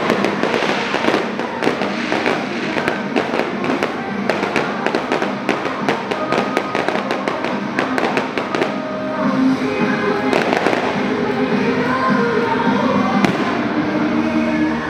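Aerial fireworks going off in rapid crackling volleys of bangs for about the first eight seconds, then only a few scattered pops as new shells rise. Music plays throughout.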